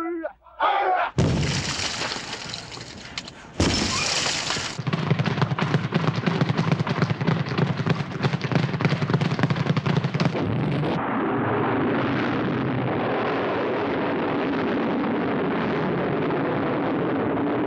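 Film battle sound effects: two loud blasts like explosions in the first few seconds, then rapid, dense gunfire for about five seconds, giving way to a steady noisy din of battle.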